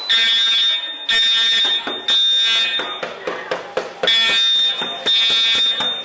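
EST Integrity fire alarm horns sounding a high, harsh tone in the temporal-three evacuation pattern: three blasts, a pause of about a second, then two more. In the pause comes a quick run of knocks, a fist rapping on a door.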